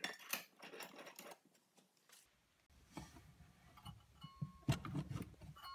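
Light clinks and knocks as pieces of an aluminum scooter deck are handled on a workbench, then the rubbing and knocking of a power cord and its plug being pushed into a wall outlet, with one sharp knock near the end.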